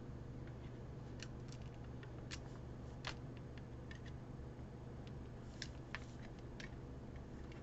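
Faint, scattered small clicks and ticks from hands working vinyl and transfer tape on a ceramic tile, over a steady low hum.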